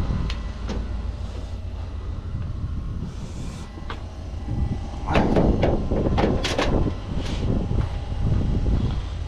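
Hand grease gun being pumped and handled at combine grease fittings: metallic clicks and clanks, a few at first and a dense cluster about five to seven seconds in, over a steady low rumble.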